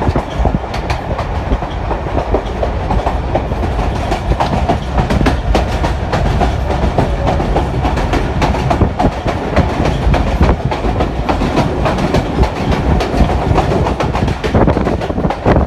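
Pakistan Railways Chenab Express passenger train running at speed, with a steady rumble and wheels clattering irregularly over the rail joints.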